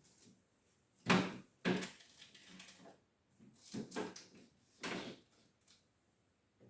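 A door or cupboard being opened and shut, with four or five sharp knocks and clunks of handling.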